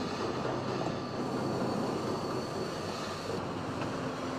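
Steady industrial din of a Volkswagen Beetle car assembly line: a dense, even machinery noise with a few faint steady hums running through it.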